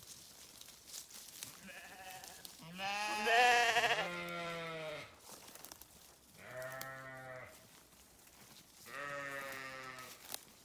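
Sheep bleating: about four separate wavering bleats, a faint one about two seconds in, the loudest about three seconds in running straight into a lower one, then two shorter bleats about six and a half and nine seconds in.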